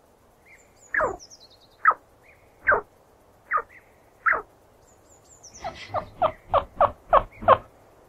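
Chinchilla squeaking: five short squeaks, each falling in pitch, about a second apart, then a quick run of about seven squeaks near the end.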